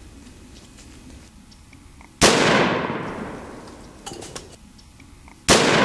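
Two gunshots about three seconds apart, each very loud and echoing for over a second as it dies away.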